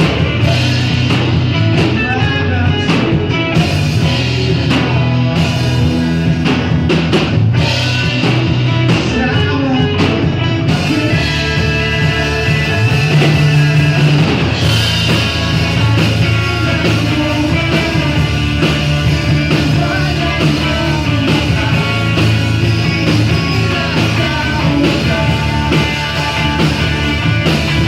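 A rock band playing live, with bass, drums and a singing voice.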